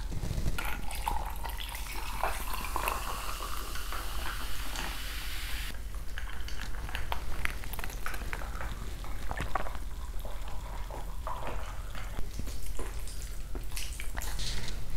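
Close-miked liquid and food sounds: a steady hiss for the first few seconds that stops abruptly about six seconds in, then sips from a glass. Near the end, wooden chopsticks break egg yolks and stir them into raw minced beef with sticky, wet clicks.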